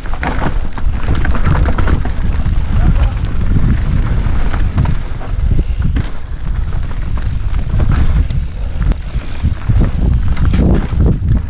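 Wind rushing over a helmet-mounted camera's microphone as a mountain bike descends a dirt singletrack, with frequent knocks and rattles from the bike and its tyres rolling over roots and rocks.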